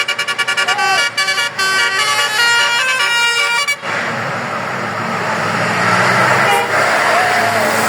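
Bus telolet horn (basuri multi-note horn) sounding in rapid stuttering pulses, then playing a tune of changing notes. It cuts off sharply nearly four seconds in, and the bus's engine and road noise take over.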